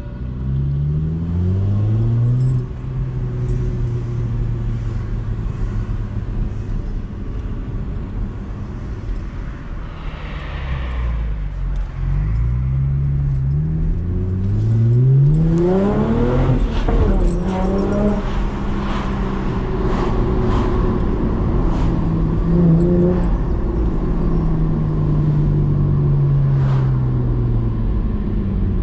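Chevrolet Camaro's engine heard from inside the cabin, pulling up through the gears of its manual gearbox. The note rises and drops back at each upshift about two seconds in and again several times between about twelve and sixteen seconds in, then holds a steady cruising note.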